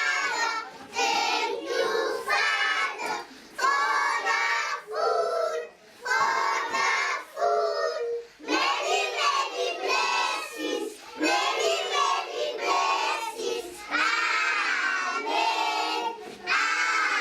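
A group of children singing together in high voices, with short breaks between phrases.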